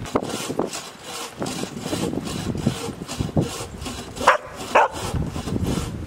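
A dog barking twice in quick succession, about four seconds in.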